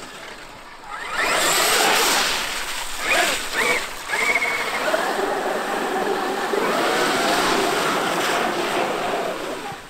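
Traxxas X-Maxx electric RC monster truck driving through puddles: its brushless motor whines up and down with the throttle while the tyres splash and spray water.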